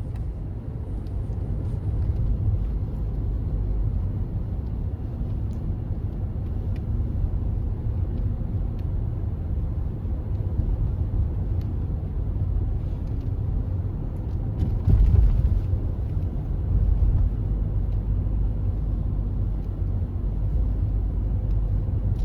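Steady low rumble of a moving car, with a brief louder swell about fifteen seconds in.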